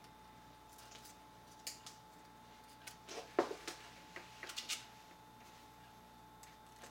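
Faint scattered light clicks and taps, several in a cluster about halfway through, over a faint steady hum.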